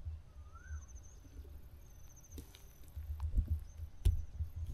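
Footsteps and rustling through tall grass and brush, with a few sharper crunches in the second half over a low rumble.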